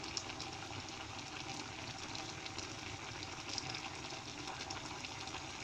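A pot of yam and plantain simmering on a gas burner: a steady hiss with faint bubbling crackles throughout.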